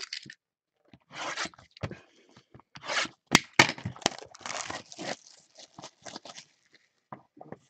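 A cardboard trading-card hobby box being picked up and opened with gloved hands: bursts of tearing, crinkling and scraping, with a few sharp clicks about three to four seconds in.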